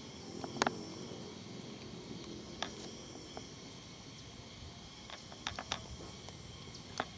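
A few faint, scattered clicks from fishing rod and reel handling while a hooked fish is being played, over a steady high-pitched hum of insects.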